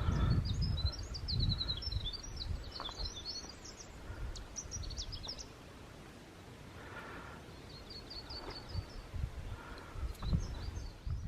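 Songbirds chirping and twittering in quick high phrases, including a short even trill about two-thirds of the way through, over a faint low rumble.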